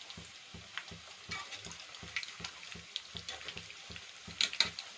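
Batter-coated chicken pakoda pieces deep-frying in hot oil in an aluminium kadai: a steady sizzle thick with small crackling pops as a wire skimmer stirs them. A couple of louder, sharper clicks come near the end.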